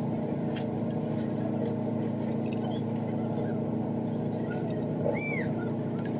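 A steady machine-like hum at constant pitch and level, with a short whistle that rises and falls about five seconds in.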